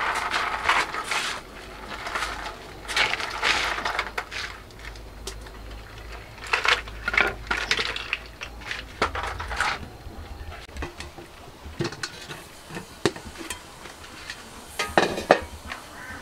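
Hands dropping chopped green onions, sliced shallots and whole red chilies into a bowl: irregular rustling pats and handling noises, with a few sharp clicks and clinks in the second half, the loudest near the end.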